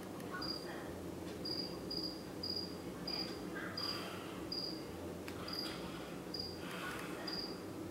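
A single cricket chirping: repeated short, high chirps, a little more than one a second, over faint room noise.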